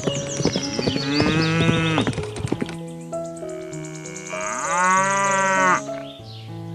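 A cow mooing twice, two long calls each rising and then falling in pitch, the second one louder, over steady background music.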